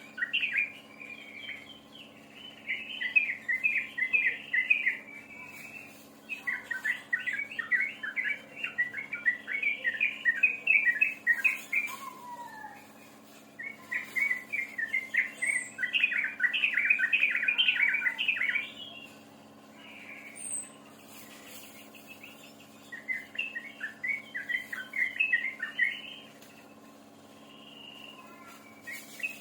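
Songbird singing in rapid, chattering phrases of a few seconds each, with short pauses between them, over a steady low hum.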